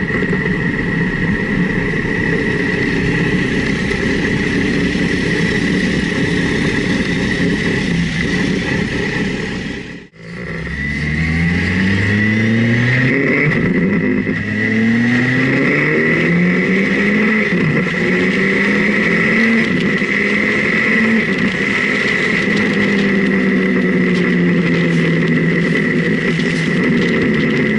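Motorcycle engine heard onboard over wind noise, running steadily at first; the sound cuts out briefly about ten seconds in, then the engine accelerates hard up through about four gears, each rise in pitch broken by a shift, before settling to a steady cruise.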